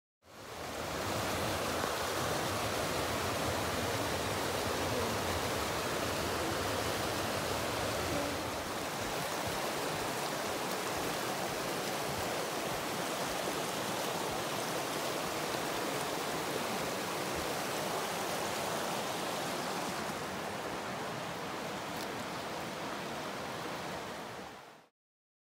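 Mountain stream rushing over boulders and small cascades, a steady rush of water. It comes in quickly just after the start, is a little lower with less deep rumble from about eight seconds in, and cuts out just before the end.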